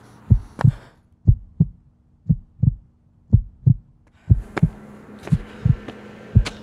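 Heartbeat sound effect: pairs of low thumps, lub-dub, about one pair a second, over a faint low hum that drops away for a few seconds in the middle.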